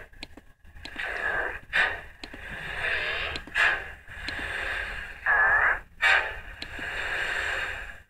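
A cartoon character's voice clip put through the 'G Major' effect: pitch-shifted copies stacked on top of each other, giving a harsh, chorused, distorted sound in a string of short loud bursts over a steady ringing tone.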